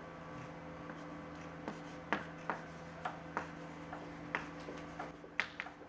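Chalk writing on a blackboard: a string of irregular short taps and strokes, several in quick succession near the end.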